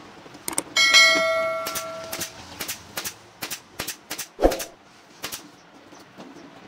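Pneumatic upholstery staple gun firing a dozen or so sharp shots at an irregular pace, about two a second, as elastic webbing is fastened to a wooden sofa frame. The heaviest shot, with a dull thump, comes about four and a half seconds in. About a second in, a metallic clang rings on for about a second and a half.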